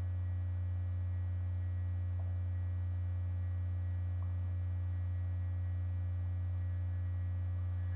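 Steady low electrical hum in the recording, with no other clear sound.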